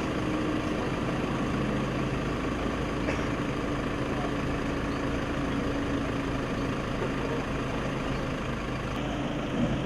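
An engine idling: a steady low hum with a few level tones, unchanging throughout.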